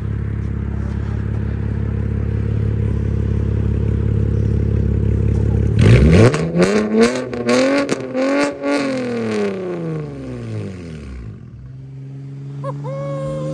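Chevrolet Camaro RS's V6 engine idling steadily, then revved several times in quick succession about six seconds in, the pitch climbing and falling with each rev before sliding back down. A steady engine note returns near the end.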